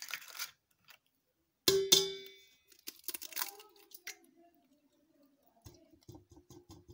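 An egg struck against the rim of a stainless-steel mixing bowl: one sharp clang about two seconds in, ringing briefly. Lighter knocks and a quick run of soft taps follow as the shell is broken open.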